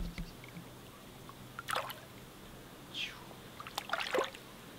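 Small hooked fish splashing at the water's surface as it is drawn in and landed by hand: a few short splashes, with a quick cluster near the end.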